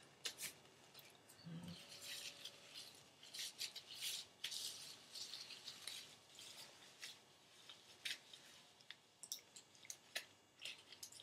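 Faint, scattered rustling and squishing of gloved hands working a protein treatment through damp hair.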